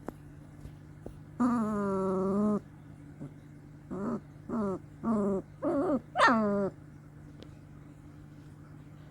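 Two-week-old long-coat German Shepherd puppy whining: one long whine, then a run of five short whines, the last swooping up higher before dropping.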